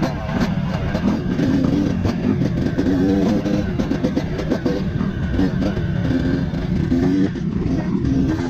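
Dirt bike engine revving and easing off in quick changes of pitch as it picks its way over rocks.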